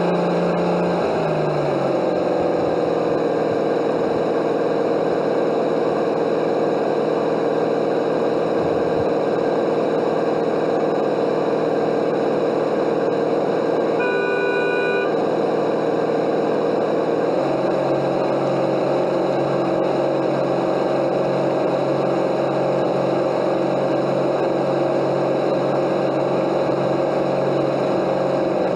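Whine of a 1/12 scale radio-controlled DUKW model's drive motor and gearing, heard close up from on board while it runs across the water. The pitch drops about a second in as it slows, then steps up again a little over halfway as it speeds up. A short beep comes about halfway through.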